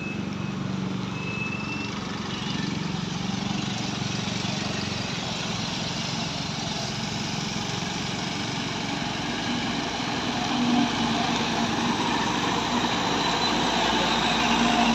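Engines of slow-moving traffic running and passing by, with a cargo truck's engine growing louder as it drives close past near the end.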